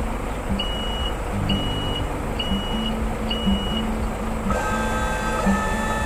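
Cartoon sound effect of a wheel loader's engine running with a steady low, pulsing drone. Four high beeps sound about a second apart, like a reversing alarm. About four and a half seconds in, a cluster of higher steady tones joins in.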